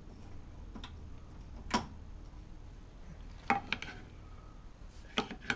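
A spoon stirring in a metal saucepan of curdling milk and vinegar, knocking and scraping against the pan in several sharp, irregular clicks as the casein curds thicken.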